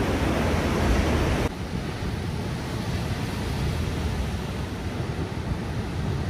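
Ocean surf washing and breaking against rocks, with wind rumbling on the microphone. About a second and a half in the sound drops abruptly to a quieter, deeper wash of waves.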